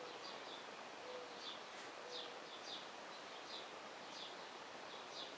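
Faint outdoor birdsong: small birds chirping in short, high, downward-sliding notes, a couple each second. There are a few short low notes in the first couple of seconds, over a steady background hiss.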